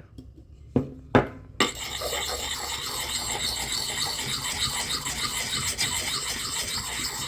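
Fine side of a water-wetted Lansky sharpening puck grinding against a hatchet's edge in a circular motion: a continuous rasping scrape that starts about a second and a half in, after two light knocks.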